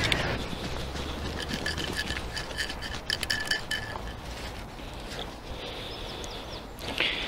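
Perforated metal sand scoop shaken to sift sand, with a coin clinking and rattling against the scoop in a run of irregular metallic clicks. A brief, louder, higher-pitched sound comes near the end.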